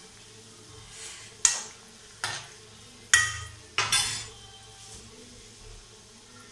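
A metal slotted spoon clinks sharply against metal cookware about four times, over the faint steady sizzle of gulab jamun deep-frying in oil.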